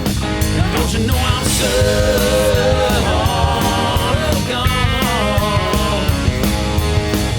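Rock song playing: a full band with drums, electric guitar and a sung vocal line.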